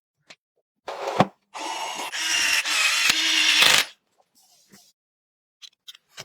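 Small electric screwdriver running for about two seconds, after a short scrape and a knock.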